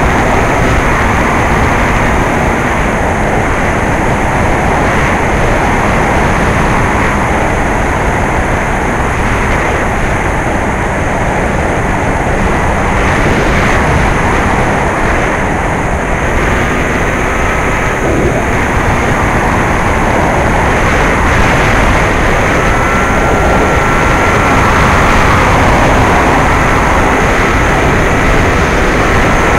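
Bixler 2 foam RC plane in flight, heard from its onboard camera: a loud, steady rush of air over the microphone mixed with its brushless electric motor and propeller. A faint thin whine from the motor comes and goes in the second half, shifting slightly in pitch.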